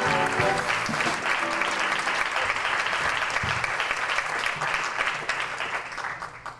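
Audience applauding, with music playing under it during the first couple of seconds; the applause dies away near the end.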